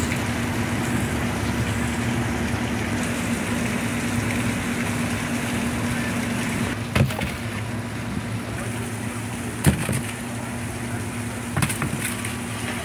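Steady hum of running machinery with a held tone, and sharp thuds of frozen fish landing in a plastic bin: one about seven seconds in, a louder one near ten seconds, and a couple more near the end.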